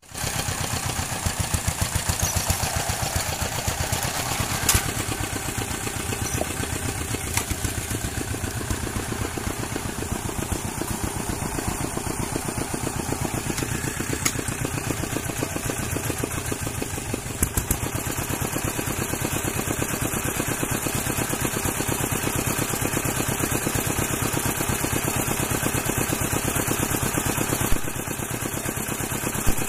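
An engine running steadily at an even speed, with a few short clicks.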